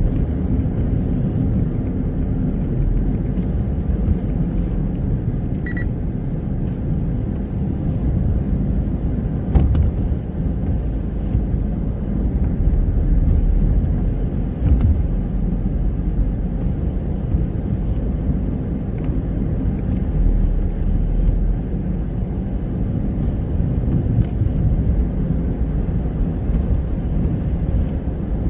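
Car driving along a road: a steady low rumble of engine and tyre noise, with a single short bump about ten seconds in.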